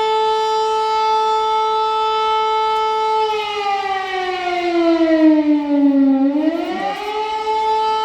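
Civil defense air-raid siren sounding a missile-danger warning: a loud steady tone that sags in pitch about three seconds in, then climbs back to its steady pitch near the end.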